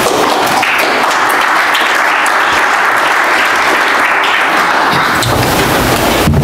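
Audience applauding, a dense steady clapping that fades out about five seconds in.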